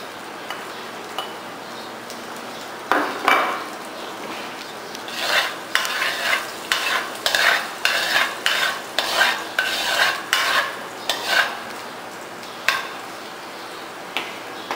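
Minced garlic sizzling in hot oil and butter in an aluminium wok, with a metal ladle scraping and stirring it around the pan. The strokes come about two a second from about three seconds in until about eleven seconds in, then twice more near the end.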